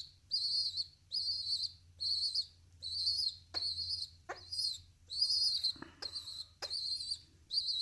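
Young English carrier pigeon squab begging: a string of short, high, squeaky peeps, a little more than one a second, with a few faint taps between them.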